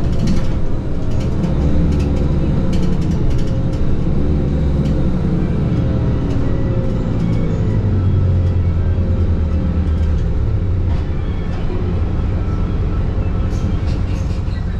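Mercedes-Benz OM 906 hLA six-cylinder diesel of a Citaro city bus running under way through its Voith DIWA automatic, heard from inside the passenger cabin as a steady drone whose pitch shifts slowly, with tyre and road noise underneath.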